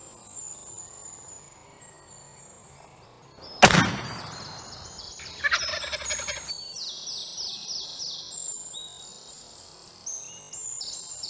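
A .50-caliber Hawken-style percussion muzzleloading rifle fires a single shot about three and a half seconds in, the report dying away over a second or so. Bird calls follow: a rattling call just after the shot, then repeated high chirps.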